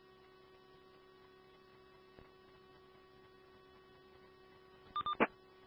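Faint steady hum and hiss on a radio scanner channel between transmissions, with two or three short tone blips about five seconds in.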